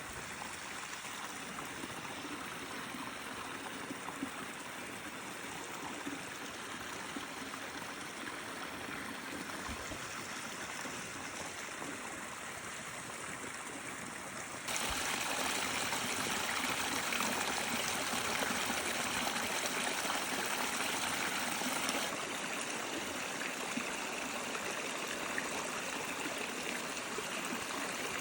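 Stream water spilling over a small waterfall: a steady rushing and trickling. It gets suddenly louder about halfway through, then eases a little.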